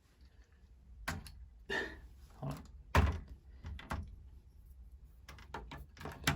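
Lego models being handled and set down on a surface: a series of plastic clicks and knocks, the loudest a dull knock about three seconds in.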